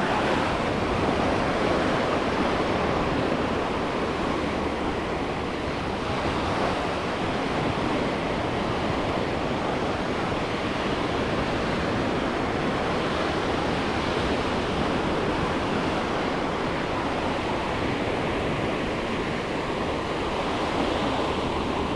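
Small sea waves washing steadily onto a sandy beach, an even wash of surf with no single breaker standing out.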